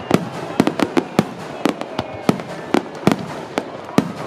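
Fireworks finale: aerial shells bursting in rapid, irregular succession, about three or four sharp bangs a second, over a continuous rumble and crackle.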